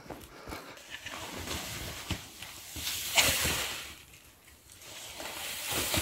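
Snow crunching and scraping as a person on snowshoes moves and a gloved hand digs in the snow, with a louder rushing scrape about three seconds in.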